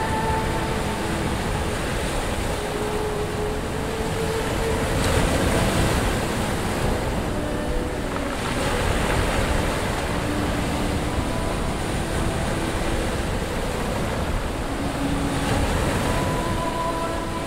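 Sea surf washing up a shore of rounded pebbles, a steady rushing noise that swells a little now and again.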